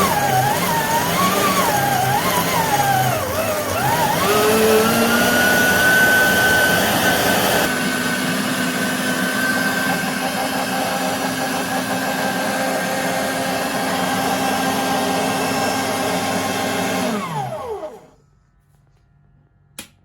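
Electric meat grinder motor running under load, its whine wavering up and down in pitch for the first few seconds, then running steady. About seventeen seconds in it is switched off and the whine falls in pitch and dies away, followed by a single click near the end.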